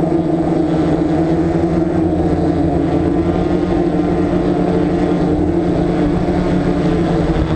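DJI F550 hexacopter's six electric motors and propellers, heard from the camera on board, with a steady, loud buzz. The craft is descending low over the ground to land.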